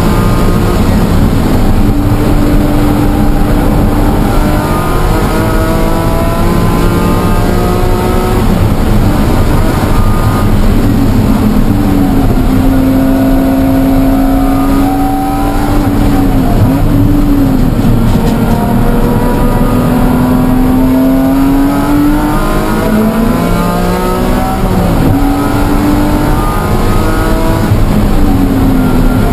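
BMW E46 M3's S54 straight-six engine run hard, heard inside the stripped cabin, its pitch climbing and falling again and again as it is driven through the gears. A steady rushing road and wind noise runs underneath.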